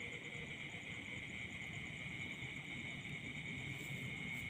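Night chorus of crickets and other insects: a steady high buzz with a fast pulsing trill above it.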